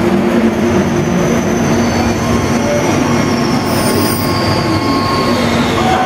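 Steady machinery running noise: a constant low hum under a dense rumble, with faint high whining tones that slowly fall in pitch over a few seconds.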